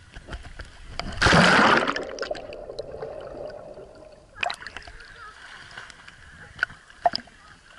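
Swimming-pool water splashing over a camera held at the surface, a loud splash about a second in as it dips under, then sharp little water clicks and splashes as it bobs back up.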